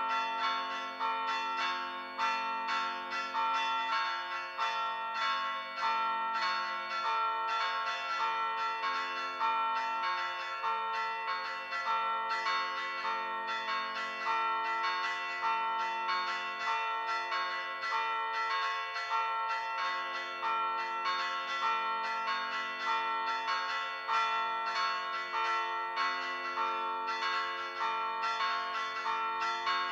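Church bells played by pritrkavanje, the Croatian and Slovene folk way of ringing stationary bells by striking their clappers against the rims by hand. Quick strikes in a steady repeating pattern, several bells of different pitch ringing on over one another, heard close up in the belfry.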